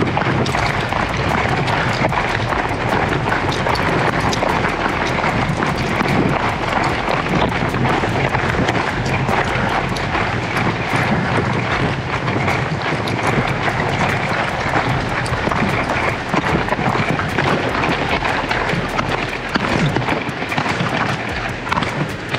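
Steady rush of wind on a body-worn microphone while a person runs, with footfalls and jostling knocks throughout.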